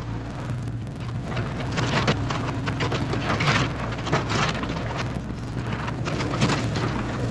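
A steady low machine hum under dense, irregular crackling and snapping.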